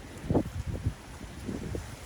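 Wind buffeting the microphone in uneven low gusts, one stronger gust about a third of a second in and others near the end.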